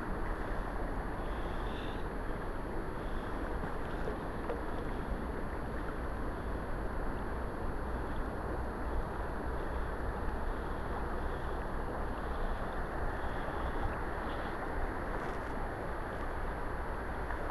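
Steady rush of a shallow river running over stones, with a low rumble underneath.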